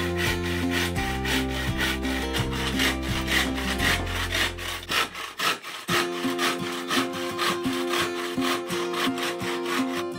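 Hand saw cutting across a bamboo tube in quick back-and-forth strokes, each stroke a dry rasp, with background music underneath.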